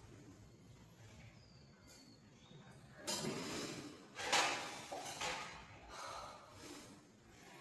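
A man breathing hard with effort during pull-ups. A noisy exhale comes about three seconds in, a louder one a second later, then a few softer breaths.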